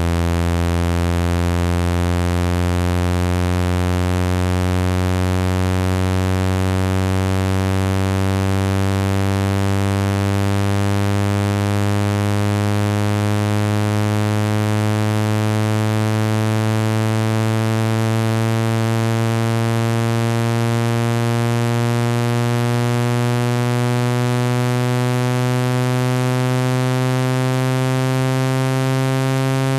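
Synthetic water-eject tone for phone speakers: a loud, low, buzzy tone with many overtones that climbs slowly and steadily in pitch, meant to vibrate water out of an iPhone 17's speaker mesh.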